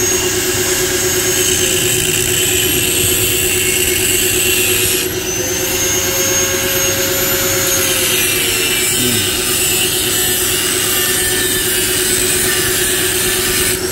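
Electric angle grinder running steadily and cutting into the stock steel muffler of a TVS Apache RR 310, its whine dipping and recovering in pitch as the disc bites, with a brief drop about five seconds in.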